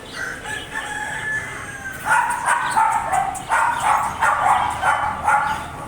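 A German Shepherd barking over and over, about two barks a second, starting about two seconds in. Before that comes one long pitched call lasting nearly two seconds, falling slightly in pitch.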